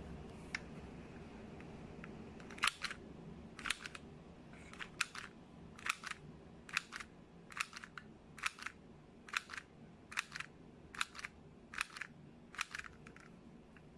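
Hand-held mini sewing machine squeezed by hand to stitch fabric: about a dozen sharp double clicks, roughly one a second, starting a couple of seconds in.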